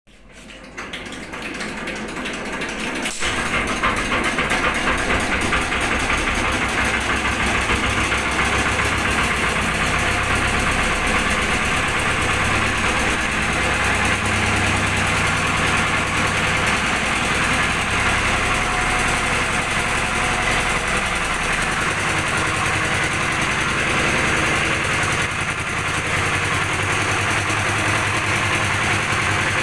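An engine running steadily with an even, rapid pulse, building up in level over the first few seconds; a sharp click sounds about three seconds in.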